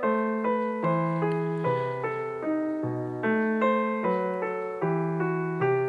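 Background music on piano or electric piano: a gentle melody of notes struck about twice a second, each fading after it is played.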